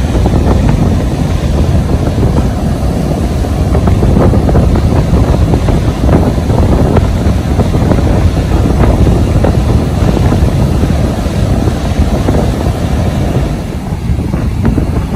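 Strong storm wind buffeting the microphone, a heavy low rumble over the wash of rough, breaking surf.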